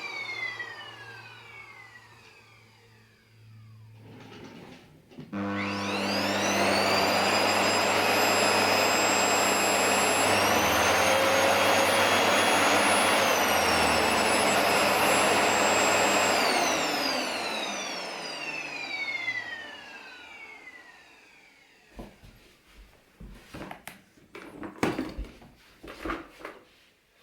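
Panasonic MC-PJ23A paper-bag canister vacuum cleaner motor: it winds down at first, then starts again about five seconds in with a rising whine and runs loudly and steadily, its pitch stepping up partway through. It is switched off and winds down with a falling whine, followed near the end by a series of clicks and knocks.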